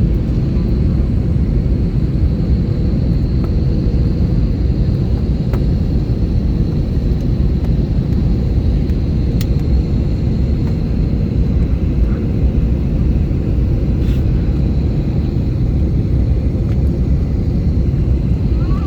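Airplane noise: a steady low rumble with a faint high whine held throughout.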